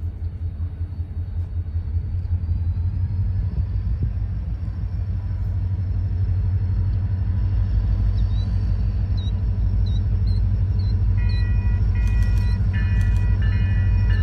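Three EMD SD40-2 diesel-electric locomotives approaching with a deep engine rumble that grows steadily louder as they near. Near the end a string of evenly repeated higher tones starts up.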